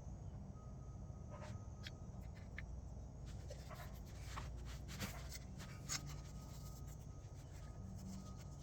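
Light scratching from a brush applying copper anti-seize to exhaust hardware, with scattered small clicks over a steady low hum.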